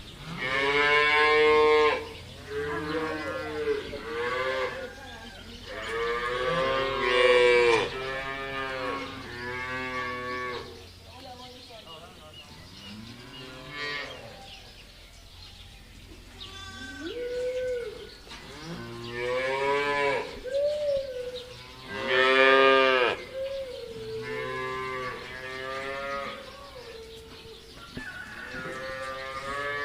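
Cattle mooing: several animals calling one after another and sometimes over each other, with a few loud calls among quieter ones.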